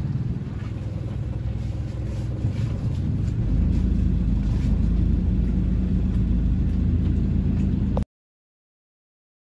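Boat engine running steadily, a low pulsing rumble that gets a little louder about three and a half seconds in and cuts off suddenly near the end.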